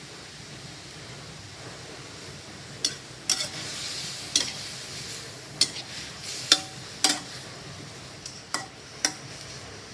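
Lemongrass-marinated pork sizzling in a pan while it is stir-roasted over low-to-medium heat. A spatula scrapes and knocks against the pan in a string of sharp clicks from about three seconds in, as the meat is stirred until it cooks.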